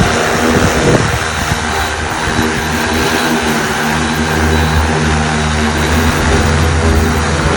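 Super X 2.0 agricultural spray drone flying, its propellers giving a loud steady hum with slight shifts in pitch.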